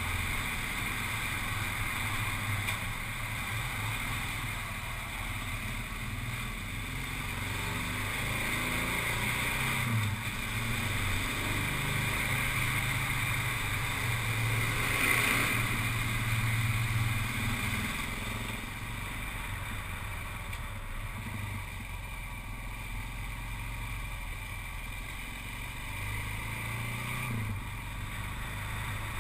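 Engine and road noise of a moving vehicle, running steadily, louder for a stretch in the middle.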